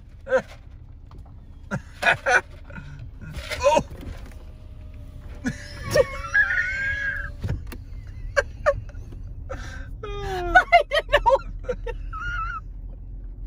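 A woman laughing and letting out excited squeals inside a car, over a low car hum that grows louder about two-thirds of the way through as the car moves off.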